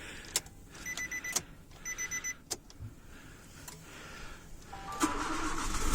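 A few clicks and two short runs of electronic beeps from the car, then the Nissan Cube's engine starts about five seconds in and settles into a steady run. The new drive belts and idler pulleys give no squeal or whistle.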